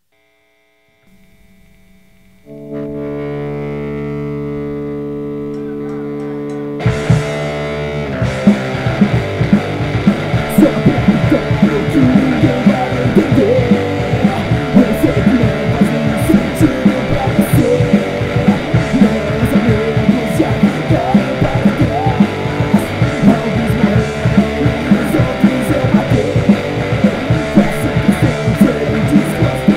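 Punk rock song. After a second or two of near silence, a single chord is held steadily, and about seven seconds in the full band comes in with drums and guitar.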